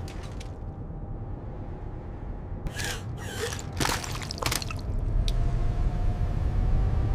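Low steady cockpit hum under a faint steady tone, with a handful of short sharp noises about three to four and a half seconds in; the hum grows louder about five seconds in.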